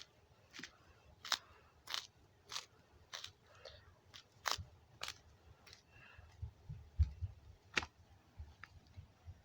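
Someone eating Cheeto Puffs close to the microphone: a run of crisp crunches, roughly one or two a second, with softer chewing in between.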